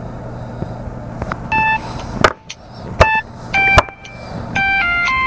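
Telephone ringing with a short electronic melody: a run of beeping notes at changing pitches, the last held longer, an incoming call. A few sharp knocks fall among the notes.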